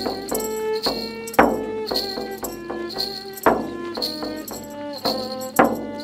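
Instrumental title music: a melody of short pitched notes over jingling tambourine-like percussion, with a strong accent about every two seconds.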